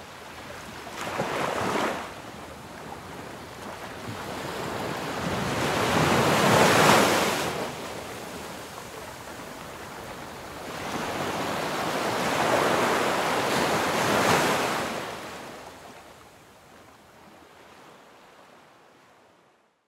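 Sea waves washing in and drawing back in slow swells, loudest about seven seconds in and again from about eleven to fifteen seconds, then fading away.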